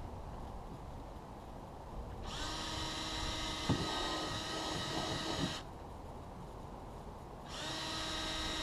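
Power drill with a 3/16-inch bit boring mounting holes through the side of a plastic kayak hull. The motor whines steadily for about three seconds, stops, then starts again near the end.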